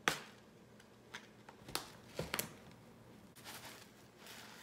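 Plastic spice jar of dried onion flakes being handled and shaken: several sharp clicks and taps, the first the loudest. Near the end comes a soft rustle as the flakes pour out.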